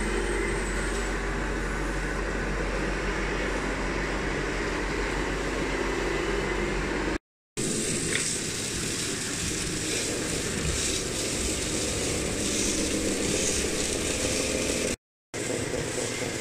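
Radio-controlled model construction machines running, with a steady mechanical, engine-like hum. The sound cuts out completely twice for a moment, between clips.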